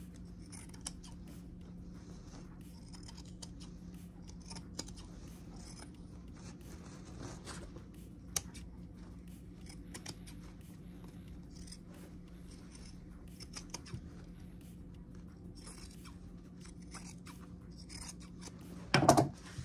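Scissors snipping through bulky quilt seam allowances in scattered short cuts, over a steady low hum. One loud knock near the end.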